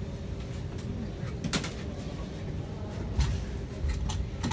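Steady low hum inside a stationary Em-501-series metro car standing at a platform, with a faint continuous tone, a few scattered clicks and knocks, and faint voices.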